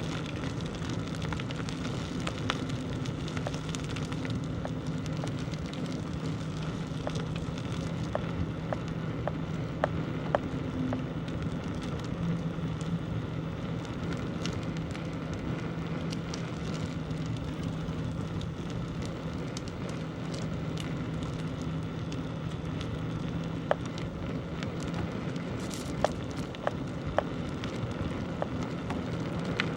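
Bicycle rolling along a rough village road: a steady crackling rush of tyre and wind noise with a low, even hum, broken by scattered sharp clicks and ticks.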